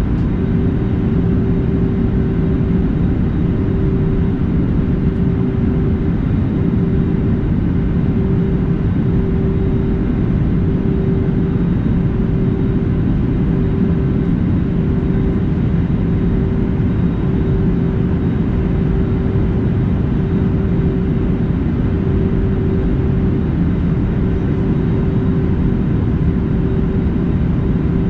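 Cabin noise of an Airbus A320neo in flight: a steady, loud rumble of engines and airflow with a constant low hum running through it.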